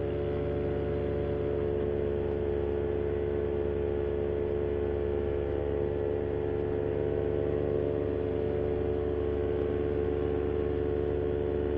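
Vittorazi Moster 185 single-cylinder two-stroke paramotor engine and propeller running steadily at cruise power in flight, holding one even pitch.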